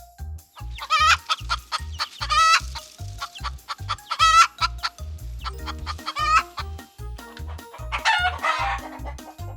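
Chickens clucking and squawking in several short calls, with a harsher call near the end, over background music with a steady low beat about four times a second.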